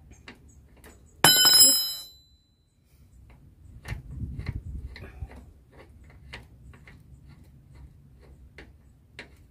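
A sharp metallic ring about a second in, dying away within a second, then a run of light, irregular metal clicks and ticks as a new bicycle pedal is worked onto the crank by hand.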